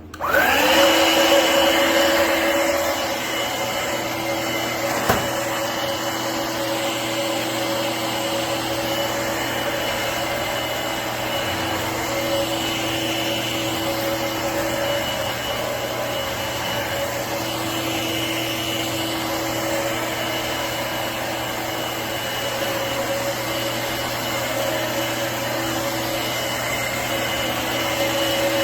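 Shark Navigator Freestyle cordless stick vacuum (SV1106) switching on, its motor spinning up with a rising whine, then running steadily with a hum and a high whine. A single click comes about five seconds in.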